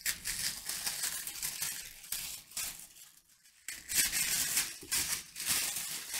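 Thin tissue-like wrapping paper rustling and crinkling as a small packet is unwrapped by hand, in uneven bursts with a short lull about three seconds in.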